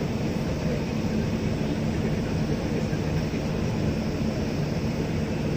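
Steady drone of aircraft engines, a constant low hum under an even rushing noise.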